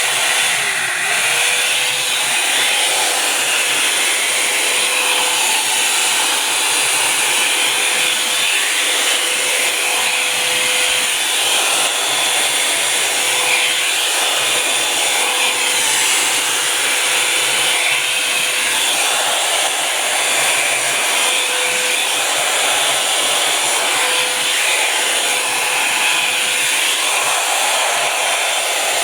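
Revlon Volumizer Plus hot-air brush dryer running steadily, its fan blowing air with a faint steady whine.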